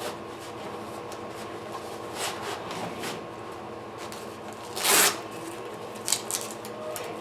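Swing parts being handled during assembly: short rustles and scrapes, the loudest about five seconds in, over a steady background hum.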